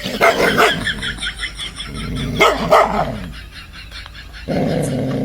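A dog barking in bursts, loudest about two and a half seconds in, with a longer steady pitched sound near the end.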